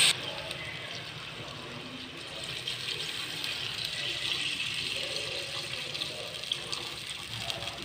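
Water being poured into a cooking pot over sautéed chicken pieces: a steady pouring splash, a little louder in the middle.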